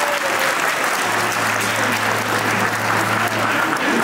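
Audience applauding, with a low steady hum coming in about a second in and stopping near the end.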